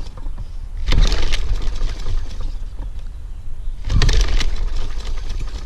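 Briggs & Stratton 550EX 140cc engine on a Troy-Bilt push mower being pull-started twice, about a second in and again about four seconds in. Each pull gives a brief loud burst of cranking and coughing, but the engine does not keep running. The mower takes a few pulls to start; the owner notes a very dirty air filter.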